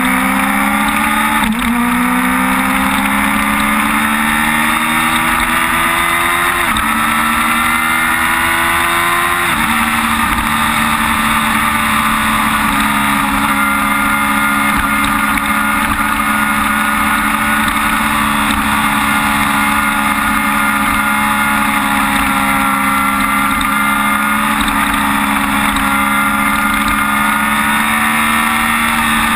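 Sport bike engine under hard acceleration, the pitch climbing and dropping abruptly at three upshifts in the first ten seconds. It then holds steady at high revs at speed on the track.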